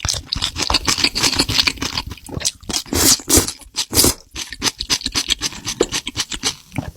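Close-miked eating of spicy seafood: rapid, irregular wet chewing, crunching and smacking, with a few louder crunches around the middle.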